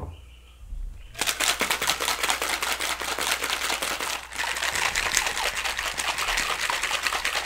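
Copper cocktail shaker shaken hard, its contents rattling rapidly. The rattling starts about a second in and breaks off briefly about four seconds in before going on.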